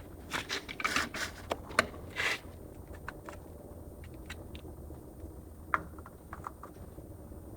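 Short clicks, taps and scrapes of plastic parts and tools being handled, close together in the first couple of seconds and then sparser, over a low steady hum.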